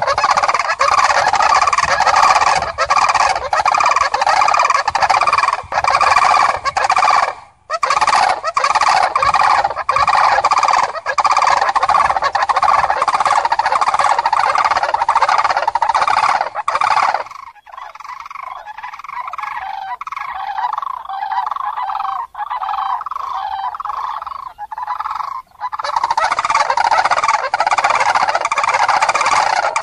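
A flock of common cranes calling together: a dense chorus of overlapping trumpeting calls. The chorus drops for a moment at about eight seconds in. A little past the middle it thins to fewer, quieter calls for about eight seconds, then swells again.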